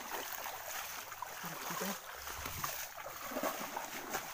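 Water sloshing and splashing as people wade through a shallow creek, with faint voices in the background.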